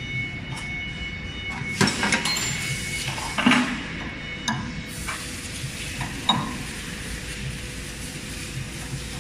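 Sharp metal clinks and taps from hand work at a CNC router's spindle, as the cutter and collet nut are handled. There are a handful of separate clicks, mostly in the first six or so seconds. A steady high whine dies away about two seconds in.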